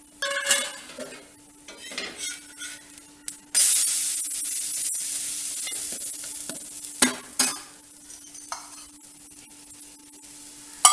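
Wet dosa batter hitting a hot iron tawa as a stuffed dosa is flipped, starting about three and a half seconds in with a loud sizzle that slowly fades. The steel lid and spatula clink against the pan before it, and the spatula knocks on the pan twice more about halfway through.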